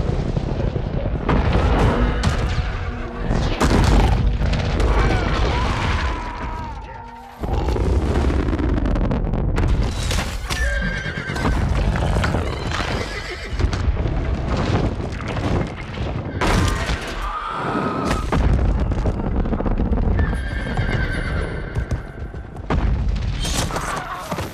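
Film battle soundtrack: repeated explosions and fireball impacts booming, with horses whinnying several times and a music score underneath.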